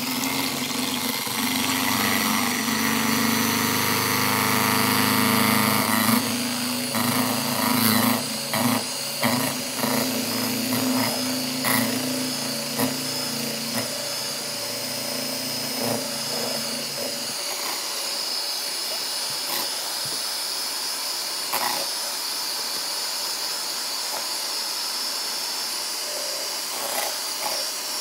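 Electric hand mixer running steadily with a high motor whine, its beaters whipping egg whites into a stiff foam in a stainless steel bowl. Between about six and twelve seconds in, the beaters knock and rattle against the side of the bowl.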